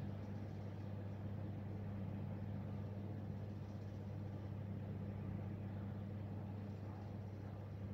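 A steady low hum over a faint background rumble, unchanging throughout, with no distinct events.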